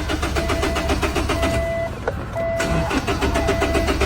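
Car engine cranking rhythmically on the starter without catching: a no-start. The cranking breaks off briefly about two seconds in and then resumes.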